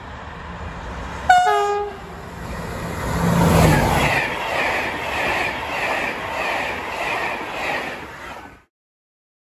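A passing train gives a short horn blast, then goes by with its wheels clacking over the rail joints about twice a second. The sound cuts off suddenly near the end.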